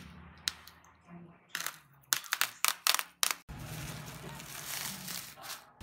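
Plastic bubble wrap around a parcel being handled: a quick run of sharp crackles and snaps in the first half, then a softer, steadier crinkling rustle as hands pull at the wrap.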